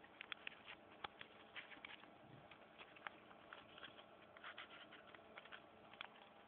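Near silence with faint, irregular small clicks and taps, several a second.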